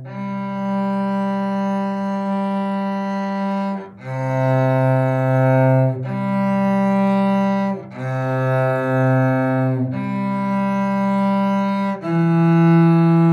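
Solo cello playing slow bowed notes of a simple C major melody: one long note held about four seconds, then a string of notes about two seconds each, with a brief dip at each bow change.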